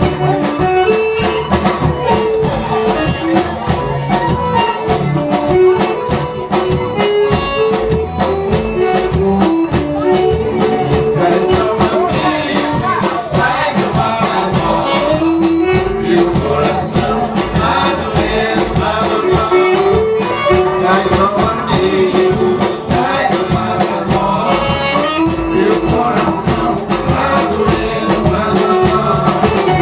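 Regional dance band playing an upbeat vanera-style song, a melodic lead line moving over a steady, quick beat.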